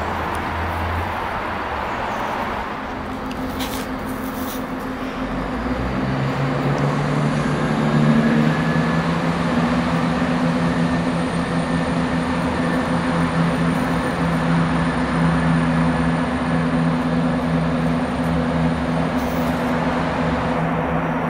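Class 170 Turbostar diesel multiple unit pulling away under power. Its diesel engine note swells and rises from a few seconds in, then runs steadily, with a couple of brief clicks early on.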